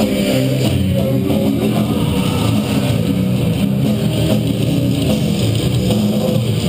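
Background rock music with guitar, at a steady level.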